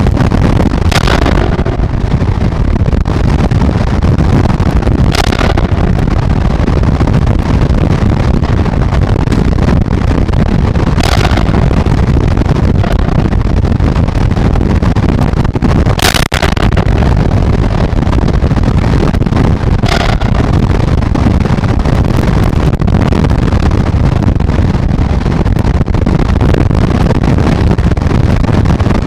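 Heavy storm wind and driving rain buffeting the nest-box microphone: a loud, steady rumble with several brief hissing gusts every few seconds.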